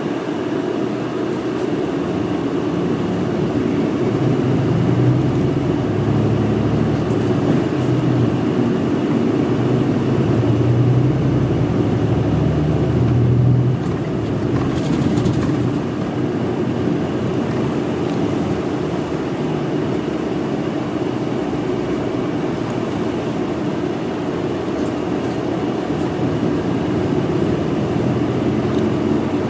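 Interior of a city route bus under way: steady engine and road noise. The engine note builds over several seconds and then drops off suddenly about 13 seconds in, followed by steady running noise.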